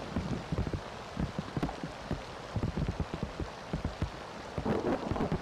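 Heavy rain pouring down onto water and a straw nest: a steady hiss of rainfall with many separate, sharp drop hits.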